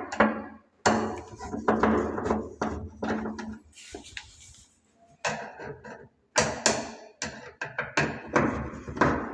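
Irregular sharp knocks and clatter from hands-on work on a wardrobe door and its 3D concealed hinges, with short quiet gaps between bursts.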